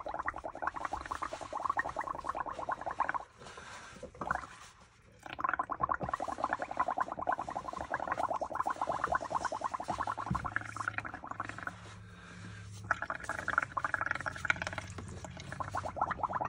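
A straw blowing into a tub of bubbly paint mixture, making a fast gurgling bubbling. It comes in three long bursts with short pauses between.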